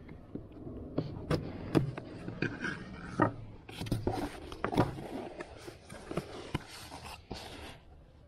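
A knife slitting the tape along a cardboard box's seam, then the box being handled and its lid opened: scraping and rubbing on cardboard with many sharp taps and clicks, fading off near the end.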